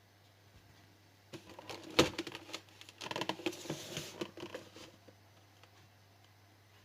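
Handling noise: a run of clicks and rustles, as of objects or packaging being moved about, with one sharp click about two seconds in.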